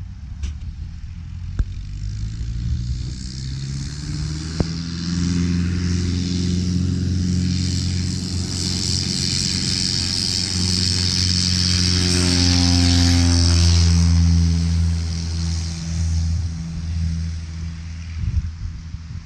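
An engine running steadily, its sound swelling to a peak about two-thirds of the way through and then easing off, with a rushing hiss rising and falling along with it. A few sharp clicks in the first few seconds.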